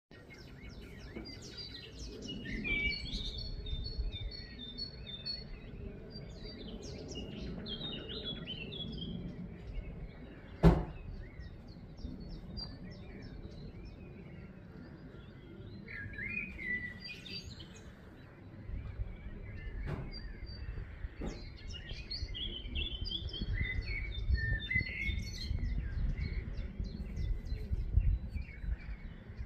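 Several birds chirping and trilling in quick, overlapping phrases, over a steady low rumble. A single sharp click about a third of the way through is the loudest sound, and two fainter clicks follow later.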